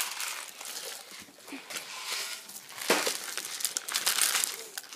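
Dried beans rattling and scraping as plastic toy construction trucks scoop them, with rustling and a few sharper clatters about three and four seconds in.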